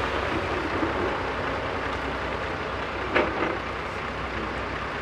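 Heavy diesel engine of a backhoe loader running steadily at work, with a brief louder sound about three seconds in.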